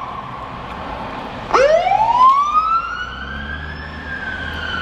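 Emergency vehicle siren wailing, heard from inside a car: one sweep trails off, then about a second and a half in a new one climbs steadily in pitch for a couple of seconds, peaks, and starts to fall near the end. A low rumble sits underneath from about three seconds in.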